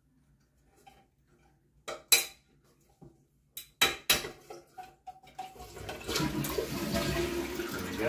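Sharp plastic clicks and knocks as the top of a Kohler canister flush valve is twisted loose. About five and a half seconds in, a steady rush of water starts, like a flush, as the canister is lifted off its seat.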